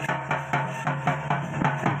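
Dance music led by a hand-played double-headed barrel drum, beating an even quick rhythm of about four strokes a second over a steady held tone.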